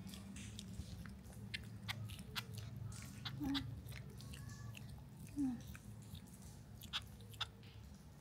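Small animal chewing food, with a scatter of small wet mouth clicks. Two brief low squeaks stand out about three and a half and five and a half seconds in.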